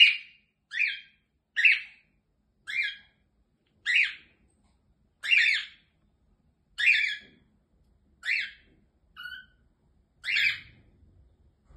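Cockatiel calling over and over: about ten short calls spaced roughly a second apart, one call near the end of the series quieter and lower than the rest.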